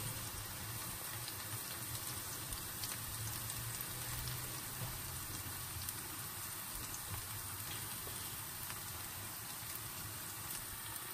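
Food cooking in a pan on the stove, sizzling and bubbling steadily with small scattered crackles.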